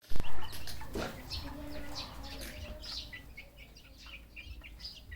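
Many birds chirping in quick, short, high calls, several overlapping at a time. A loud short knock comes right at the start.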